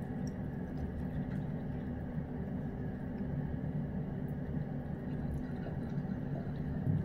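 A cat chewing and licking at fried chicken in a bowl, with faint wet clicks and smacks, over a steady low background hum.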